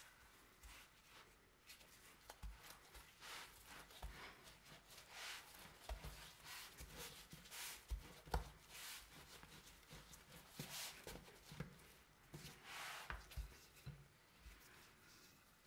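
Faint rubbing and swishing of a thin, starch-dusted dough sheet being rolled up on a wooden rolling pin over a marble countertop, with a few soft knocks.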